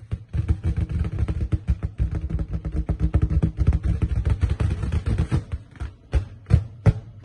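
Balloons popped with a pin: a fast, dense run of sharp pops over a low steady hum, then from about six seconds in, single pops at an even pace of a little over two a second.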